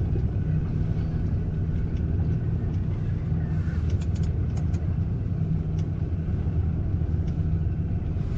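Boat engine idling steadily with a low hum, with a few faint ticks over it.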